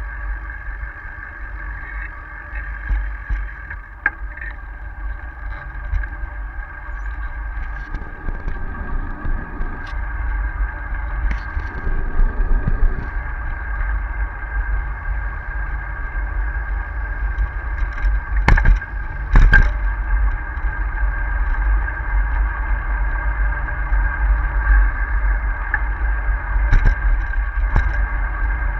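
Wind rumbling on the microphone of a camera mounted on a moving bicycle, over a steady high whine, with the bike rolling along a cycle path. A few sharp knocks and rattles stand out: two close together about two-thirds of the way through and two more near the end.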